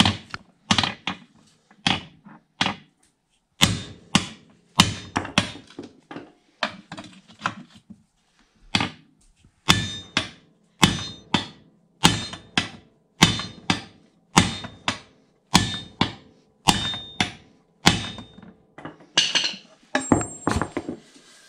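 Hand hammer, a ball-peen, striking a metal driver to drive a new rubber bushing into a steel lower control arm resting on an anvil: a run of sharp metal-on-metal blows, some of them ringing. The blows come about once a second at first and quicken to nearly two a second in the middle.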